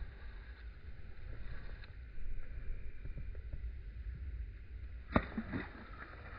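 Low steady rumble of wind on the microphone, with one sharp click a little after five seconds in.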